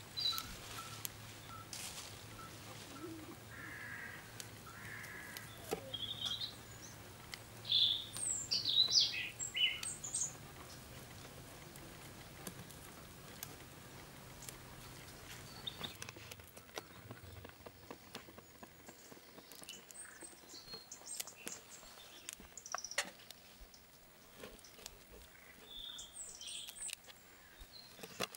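Small birds chirping and trilling in woodland, in short high calls heard mostly in the first third and again near the end. Scattered light clicks and scrapes of a steel knife working a carp on a wooden cutting board run beneath them.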